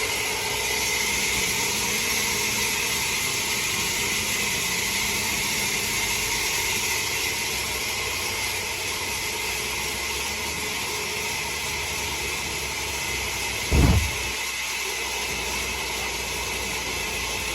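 Machinery running with a steady hiss and a low drone, and one loud, short low thud about fourteen seconds in.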